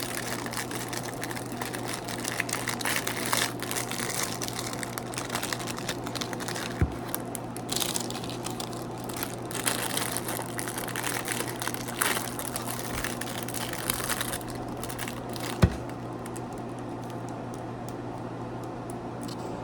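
Irregular crinkling and rustling of food wrapping being handled, with two sharp knocks, about seven and fifteen and a half seconds in, over a steady low hum.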